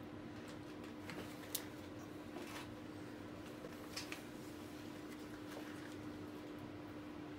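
Faint clicks and light scrapes of engine parts being handled, a few scattered taps over the first four seconds, over a steady low hum.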